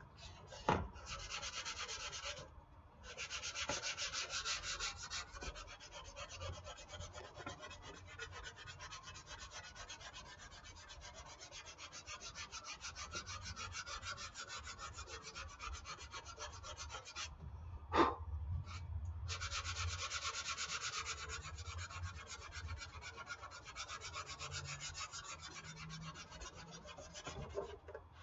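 220-grit sandpaper worked by hand in quick back-and-forth strokes over dried spackle filler on a foam model-airplane wing, knocking the filler down smooth. The scraping pauses briefly about three seconds in and again about eighteen seconds in. Two sharp knocks sound, one just after the start and the loudest about eighteen seconds in.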